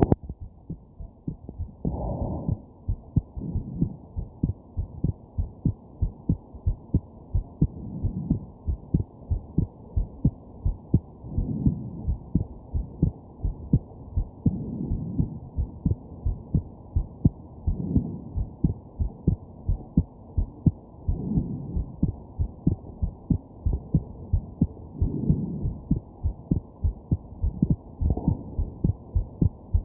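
A person's heartbeat thumping steadily and evenly, with a slower swell of breathing every three to four seconds. A few sharper jolts from hiccups come through, one about two seconds in and others later on.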